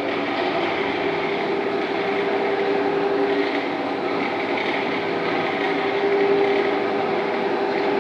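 Electric floor grinding-and-polishing machine running on a terrazzo floor: a steady motor hum over the constant grinding drone of the disc on the stone.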